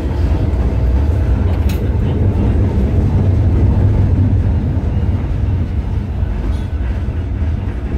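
Blackpool Balloon double-deck tram running along the track, heard from inside: a steady, loud low rumble of wheels and motors, with one sharp click about two seconds in.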